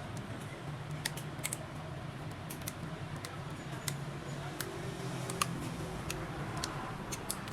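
Scattered light clicks and taps at irregular intervals over a steady low hum, as parts are handled while a welding holder is made by hand.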